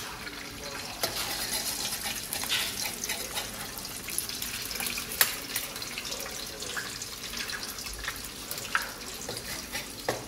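Eggs frying in a steel wok over a gas burner: a steady sizzle, with a few sharp taps and scrapes of the metal ladle against the wok.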